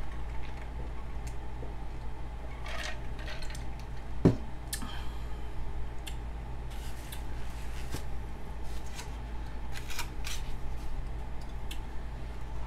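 Drinking from a tumbler and handling it: swallows and small clicks and taps, with one sharper knock about four seconds in.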